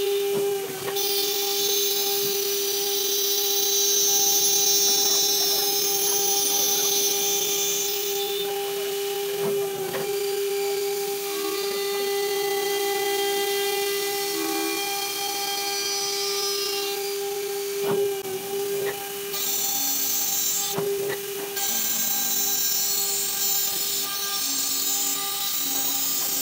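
CNC glass drilling machine's spindle running with a steady whine as it drills a glass panel under a spray of water coolant. A high grinding squeal from the bit comes and goes, over a steady hiss.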